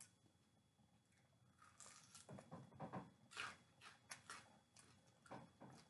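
Faint biting and chewing of a snack by a small child: a series of short crackly sounds, starting about two seconds in.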